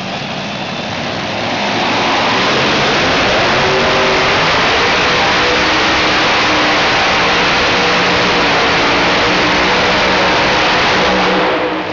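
Three-engine modified pulling tractor running at full throttle under load as it drags the weight sled down the track. The loud, steady roar builds in the first two seconds and cuts back sharply near the end as the pull finishes.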